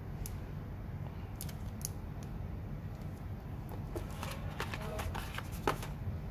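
Handling noise: a few light clicks, then a run of clicks and rustles from about two-thirds of the way in, ending in a sharper click, as a phone is set down on a desk and a charger is lifted out of its cardboard box. A steady low hum runs underneath.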